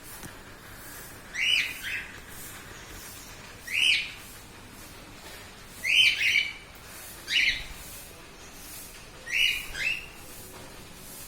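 A bird calling: short, loud, down-slurred calls repeated about every two seconds, several given as quick doubles.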